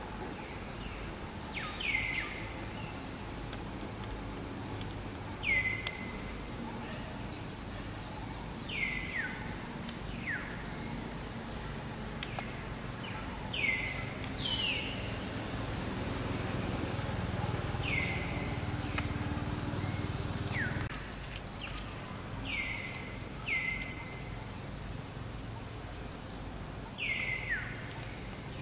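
Short, high whistled animal calls repeat every few seconds. Each slides down in pitch and ends on a brief held note, over a steady outdoor background hiss. A low rumble swells midway and cuts off suddenly.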